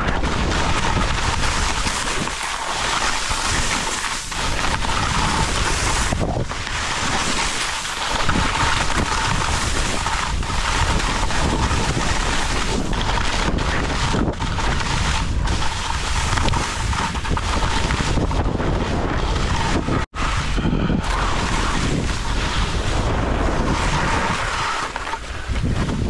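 Wind rushing over the microphone of a helmet camera on a fast ski descent, mixed with the skis hissing and scraping over softened spring corn snow. The noise is loud and constant, with one brief cut-out about twenty seconds in.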